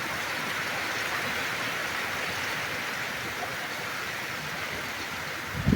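Steady rain falling: an even hiss of many drops that holds level throughout.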